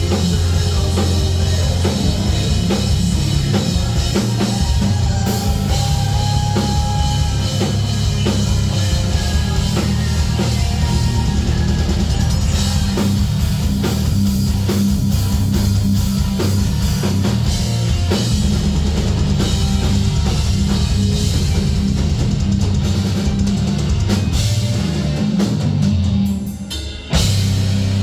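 Heavy metal band playing live: a pounding drum kit under guitars. Near the end the band briefly drops out, then crashes back in with a sudden hit.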